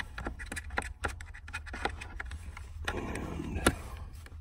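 Irregular small clicks and scrapes of a hand and an Allen wrench working at the screws on a car seat's mounting bracket, with one sharper click about three and a half seconds in.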